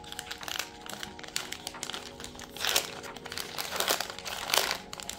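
Small plastic bag crinkling as it is handled and pulled open by hand, irregular crackles with a few louder crinkles in the second half.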